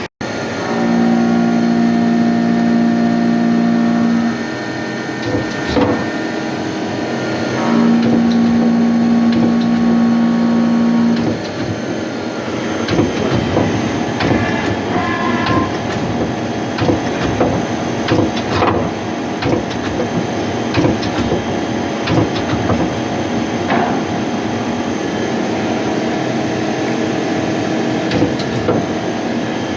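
Hyundai HIT 8 S CNC lathe running. A steady whine with a hum under it comes on twice, each time for about three and a half seconds, and from about twelve seconds in it gives way to a busier mechanical clatter with many small ticks.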